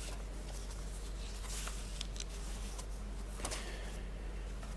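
Quiet church room tone: a steady low hum under a faint even hiss, with a few faint clicks.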